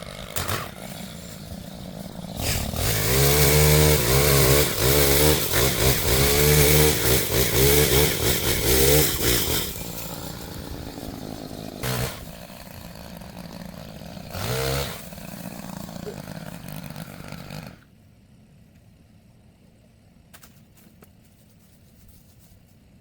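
Gas chainsaw revved hard for about seven seconds, its pitch dipping and rising as it works, as when cutting through a limb. It then drops back to idle, is blipped briefly twice, and shuts off about eighteen seconds in.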